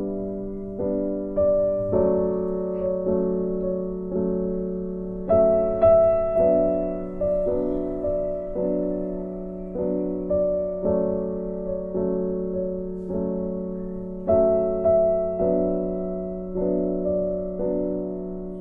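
Background music: a slow piano melody of evenly spaced notes, each struck and fading out.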